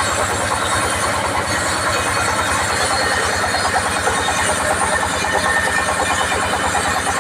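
Sawmill band saw machinery running steadily, with a fast low pulsing under a constant noisy hum.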